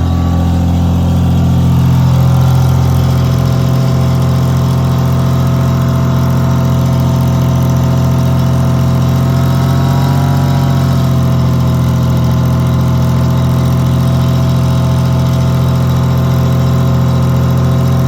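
Generator engine running steadily, its pitch dipping briefly and recovering about ten seconds in.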